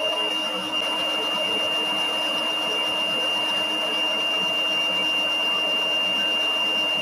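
Homemade LEGO double-acting piston engine running steadily: an even whirring rush of noise with a steady high-pitched whine held on one note.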